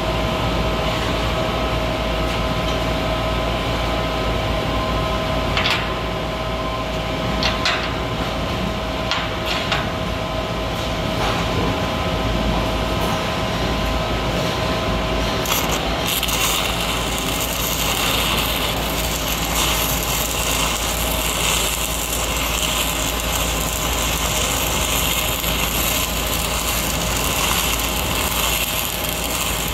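Lincoln 305D diesel engine-driven welder running steadily, with a few clicks early on. About halfway through, a stick-welding arc strikes and crackles and hisses steadily as the electrode burns overhead through the galvanized coating on the structural steel.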